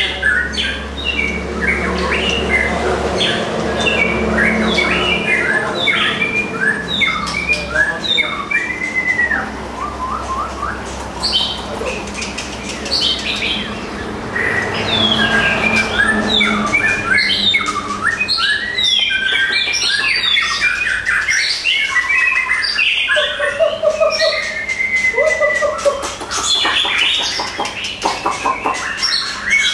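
White-rumped shamas singing from hanging cages: a continuous stream of varied whistled phrases, rising and falling glides and quick chattering notes.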